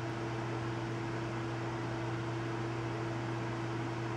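Steady mechanical hum: a constant low drone and a higher steady tone over an even hiss, with no change in pitch or level.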